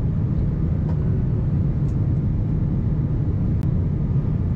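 Steady cabin noise of an Airbus A350-900 in its climb, heard from a window seat over the wing: an even, low rumble of airflow and its Rolls-Royce Trent XWB engines. One small click about three and a half seconds in.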